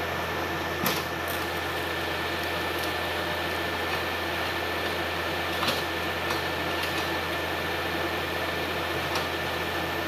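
Hitachi hydraulic excavator's diesel engine running steadily, a constant low hum with a thin steady whine above it, and a couple of short knocks about one second in and again about halfway through.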